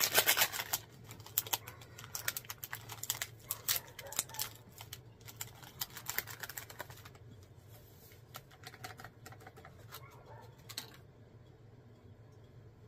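Crinkling and tearing of a plastic instant-coffee sachet as it is handled and opened: a rapid, irregular run of small crackles that stops about eleven seconds in.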